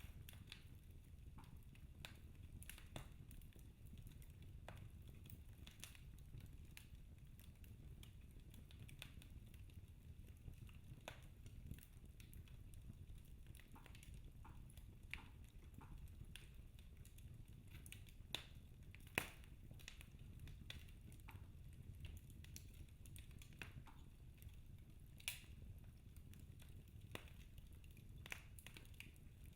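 Wood fire in a fireplace crackling softly: scattered, irregular pops and snaps over a low steady rumble, with a couple of sharper pops past the middle.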